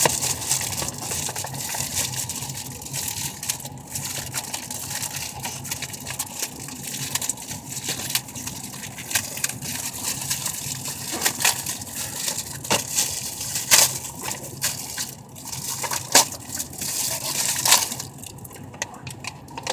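Packaging being handled and unwrapped: continuous crinkling and rustling, with sharp crackles now and then, the loudest near the middle and toward the end.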